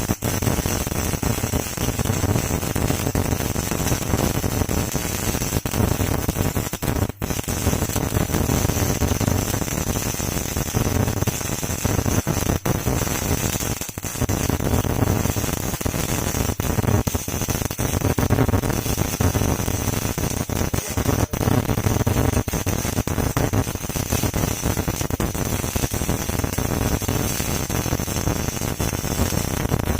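MIG welding arc crackling steadily, with brief breaks about seven and fourteen seconds in.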